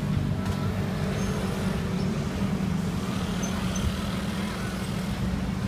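Steady low hum of a running motor-vehicle engine, with street traffic noise.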